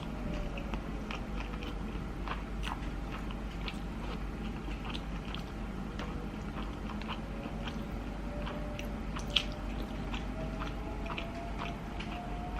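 Close-up mouth sounds of a person chewing a piece of salmon sushi, with many small wet clicks of the lips and teeth and one louder click about nine seconds in.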